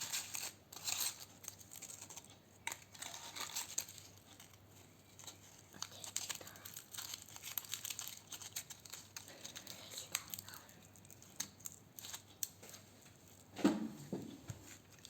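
Dry crinkling and rustling of something papery being handled, with irregular small crackles throughout and one brief louder, lower sound near the end.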